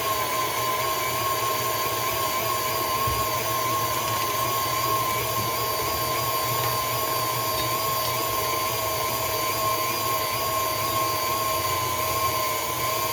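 A kitchen appliance's electric motor running steadily with an even whine.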